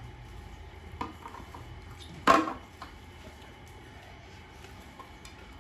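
Dishes clinking: one sharp, loud clatter a little over two seconds in, with a lighter knock about a second in.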